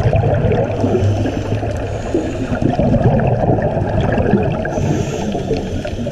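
Scuba divers' exhaled regulator bubbles heard underwater through a GoPro camera's housing: continuous dense bubbling, mostly low in pitch, with scattered faint clicks.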